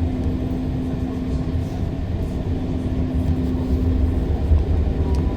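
Inside a REM light-metro car running between stations: a steady low rumble of wheels on the track, with a steady electric hum over it.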